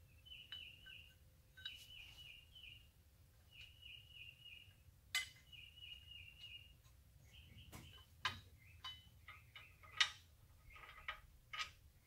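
A small bird chirping in short trills, with a few sharp metallic clicks and taps from hand work on an engine bracket and its bolts. The clicks are loudest about five and ten seconds in.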